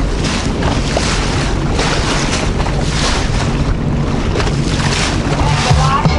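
Sea-Doo Fish Pro 170 personal watercraft running steadily at speed, its Rotax three-cylinder engine humming low under heavy wind buffeting on the microphone. Water rushes and slaps against the hull in repeated surges as it crosses the chop.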